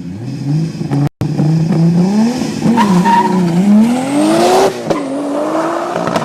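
VW Golf Mk2 engine accelerating hard, the revs climbing and falling back at two gear changes, about two and a half and four and a half seconds in. The sound cuts out briefly about a second in.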